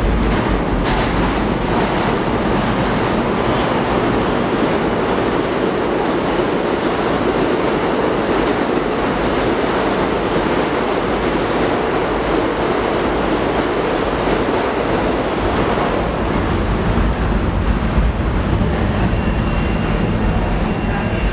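New York City subway train running along the tracks through an underground station: steady, loud noise of steel wheels on rail.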